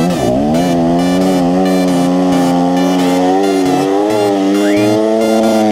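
Yamaha dirt bike engine pulling hard up a steep sand hill, heard up close from the bike: the revs climb in the first moment, then hold high and steady with slight wavering as the throttle is worked.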